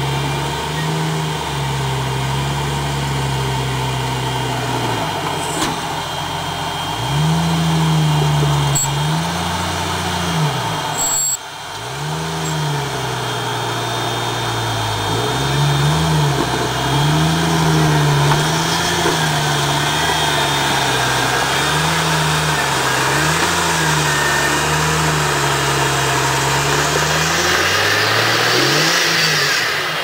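Jeep Wrangler's 4.0-litre engine crawling over boulders, held steady at first, then revved up and down again and again, about once a second, as the throttle is worked to climb the rocks.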